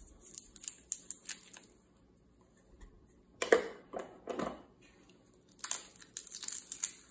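Dried bay leaves being crumbled by hand: three short bursts of crisp crackling with pauses between.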